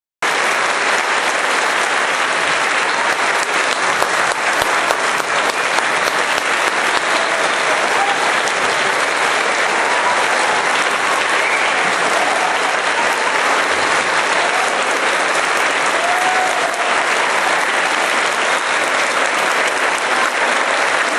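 Audience and orchestra applauding steadily, dense clapping that cuts in abruptly at the start, with a few faint voices heard over it.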